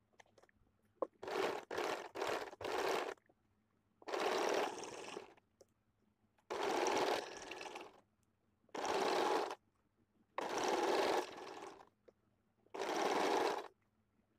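Electric domestic sewing machine stitching in stop-start runs: four quick bursts in the first few seconds, then about a second of stitching every second or two, with pauses between runs.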